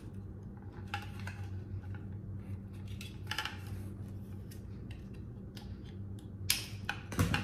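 Small plastic clicks and light handling noises as a white plastic holder with a suction cup inside is turned over in the hands, with a few sharper clicks near the end. A steady low hum runs underneath.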